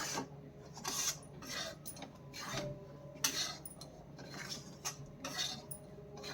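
A utensil scraping round a pan in repeated short strokes, about one or two a second, as besan is stirred and roasted in ghee.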